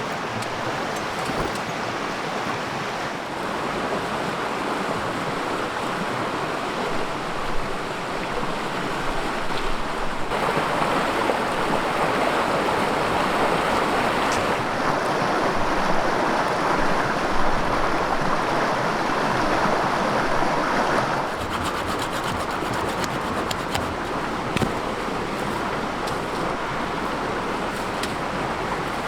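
Steady rushing of a river flowing close by. Its loudness shifts abruptly a few times, and light clicks sound over it in the last part.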